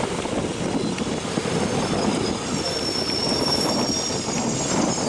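Passenger train coaches running on a curve, heard from an open coach door: a steady rumble of wheels on rail, with a high-pitched wheel squeal from about halfway through that lasts around two seconds.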